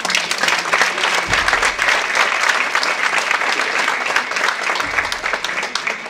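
Audience applauding steadily in a hall.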